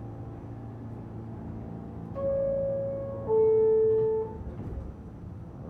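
R46 subway car's door-closing chime: two steady tones, about a second each, the second lower than the first, over the steady hum of the train standing in the station.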